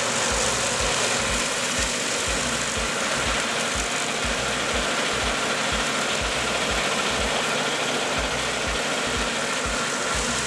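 Tractor and rotary mower running steadily under load, an even mechanical drone and rush, with a regular low thump about three times a second underneath.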